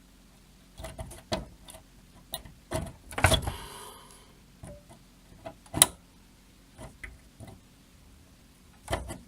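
Scattered small clicks and taps of hand work on a computer circuit board: needle-nose pliers handling old plastic jumper caps that are falling apart. The sharpest clicks come about three and six seconds in.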